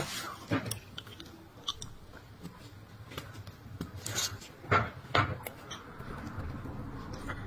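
Pedicure blade paring and scraping a thickened toenail: scattered small clicks and scrapes, with two sharper ticks about five seconds in.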